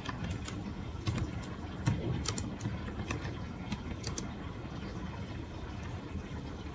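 Typing on a computer keyboard: irregular key clicks, a few a second, over a steady low background hum.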